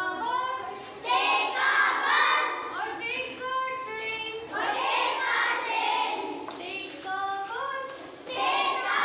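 A class of young schoolchildren singing an English poem together in unison, in phrases with short breaks between them.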